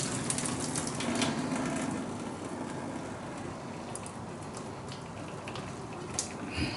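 Water draining off boiled onions, trickling away and dying down over the first couple of seconds, followed by a few light clicks of kitchen utensils and a soft knock near the end.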